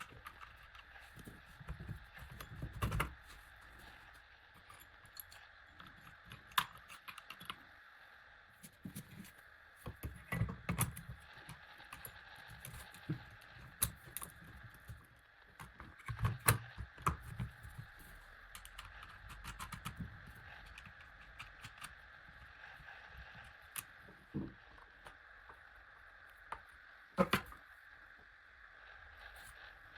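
Packaging and parts being handled: scattered clicks, knocks and short rustles, with a few louder knocks, over a faint steady hum.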